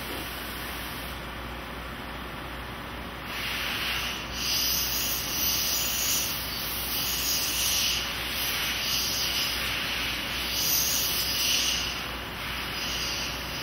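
Parker Liberty One CNC cylindrical grinder running, its grinding wheel grinding a steel part held on an air bearing workhead spindle under coolant. A steady rasping hiss from the wheel's contact comes in louder about three seconds in and eases back near the end, over the machine's low hum.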